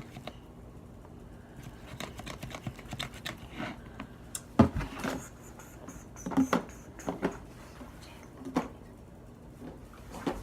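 Irregular taps, clicks and knocks of a mixing utensil against a container as sticky slime is stirred, with one louder knock near the middle.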